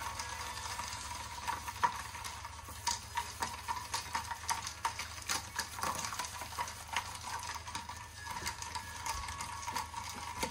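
Ice cubes clinking and rattling against a glass coffee server as freshly brewed pour-over coffee is swirled over the ice to chill it, with many small irregular clinks throughout.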